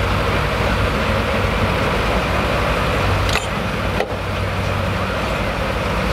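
Chevrolet Silverado HD diesel pickup's Duramax V8 running hard as it drags a weight-transfer pulling sled at the end of its pull. About three and a half seconds in the engine noise drops a little as the pull ends.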